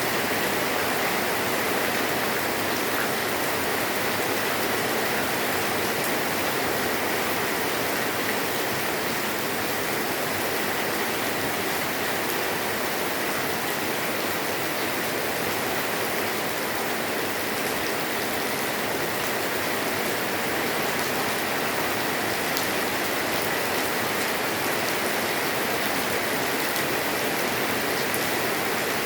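Steady light rain falling on a roof, an even hiss with scattered drop ticks.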